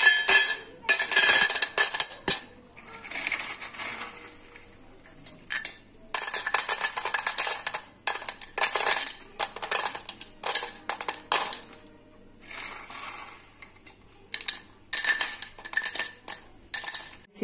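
Crisp fried besan sev (gram-flour noodles) falling and rattling onto a stainless steel plate in several bursts of sharp clicks and clinks, with short quieter gaps. The hard clatter shows how crisp the sev has fried.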